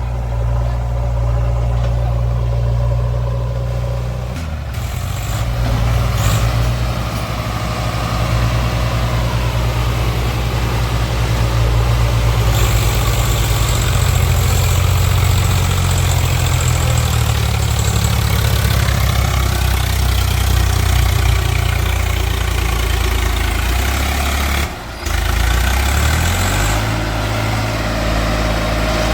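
Heavy diesel engine of a tractor or backhoe loader running steadily, its speed changing several times as it works, with a brief break near the end.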